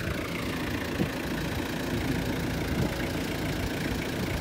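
Vehicle engine idling steadily, heard from inside an SUV's cabin.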